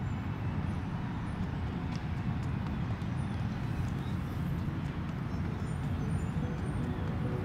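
A steady low rumbling noise with no clear beat or melody.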